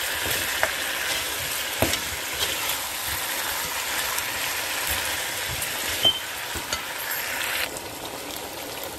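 Chicken and potato curry sizzling as it fries in oil in a pot, stirred with a spatula that clicks and scrapes against the pot now and then. The sizzle eases near the end.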